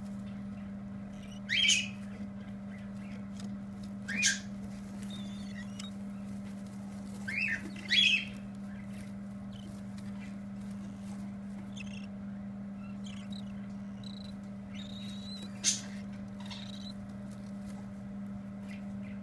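Pinfeathered baby birds giving short, sharp chirps, about five times with long pauses between, over a steady low hum.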